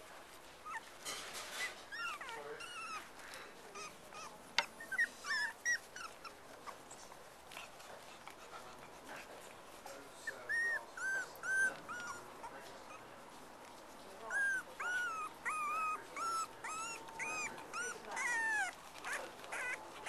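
Cocker spaniel puppies squeaking and whimpering: many short, high calls that rise and fall in pitch, coming in runs that are busiest from about ten seconds in and again from about fourteen seconds in.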